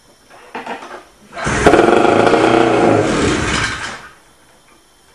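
After a few light clicks, a freshly primed Ski-Doo snowmobile's two-stroke engine catches, runs loudly for about two and a half seconds and dies, a stall the owner puts down to stale gas.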